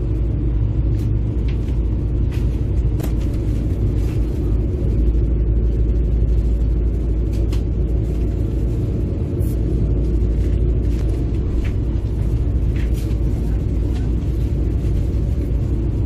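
Soviet Kometa hydrofoil's diesel engines running at low, slow-manoeuvring speed with the boat off its foils, a steady low rumble heard from inside the passenger cabin. Faint scattered clicks sound now and then over it.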